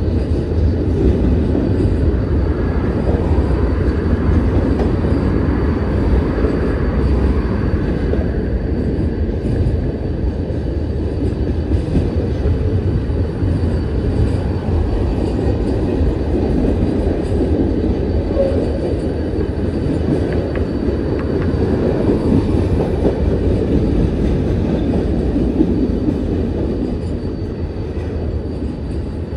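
Freight train cars rolling past on the rails: a steady rumble of steel wheels on track.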